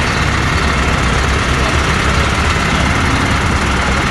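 Vehicle engine idling, a steady low rumble at an even level.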